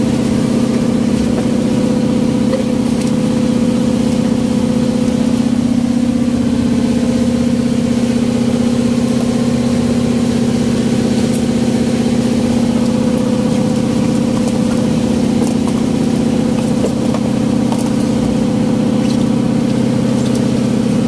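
A fishing boat's engine running at a steady speed: a constant, unchanging drone.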